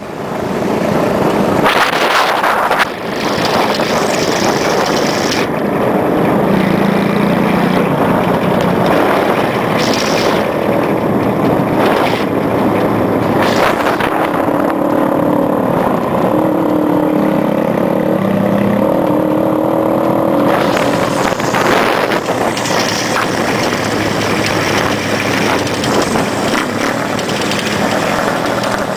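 Motor vehicle on the move: its engine running with a pitch that rises and falls as it changes speed, under a steady rush of noise.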